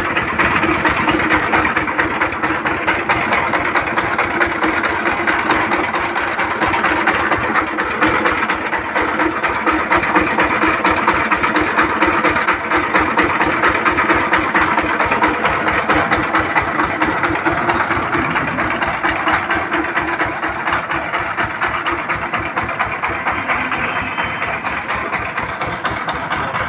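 1110 single-cylinder diesel engine, the Changfa-type power tiller engine, running steadily with a fast, even knock of firing strokes. It runs cleanly after its gear timing was set: "very nice sound, no problem."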